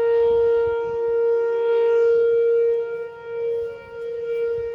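Whelen WPS 2805 electronic outdoor warning siren sounding its steady alert tone for a monthly test: one held pitch that swells and dips in loudness over the last couple of seconds.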